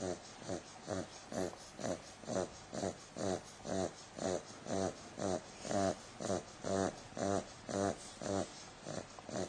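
An eight-week-old bulldog puppy snoring in her sleep, with a rattly snore on each quick breath, about two a second, in a steady rhythm.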